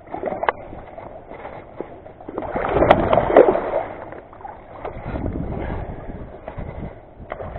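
Wading boots splashing and sloshing in shallow river water, loudest and most churning about three seconds in.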